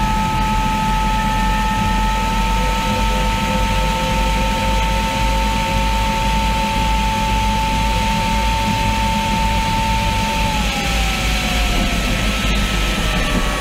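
Rolls-Royce Allison 250 gas turbine of an MTT Y2K turbine superbike whining at a steady high pitch under full throttle, with wind rush from high speed. About ten seconds in, the whine falls in pitch as the throttle is closed and the turbine spools down.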